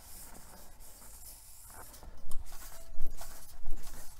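Hand pressing down on the rim of an ICAN Aero 40 carbon road wheel laid flat on a rubber mat, working around it to stress-relieve the spokes: soft rubbing, then irregular louder scuffs from about two seconds in. There is a little noise but no loud pops or clicks, the sign that the spokes are not wound up and the nipples are seated.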